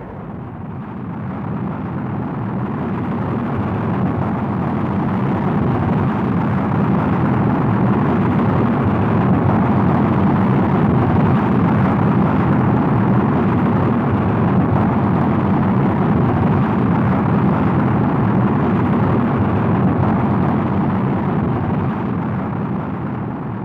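Rocket engines at launch after ignition: a loud, steady rushing rumble that builds over the first few seconds, holds, then begins to fade near the end. It is an old recording with little treble.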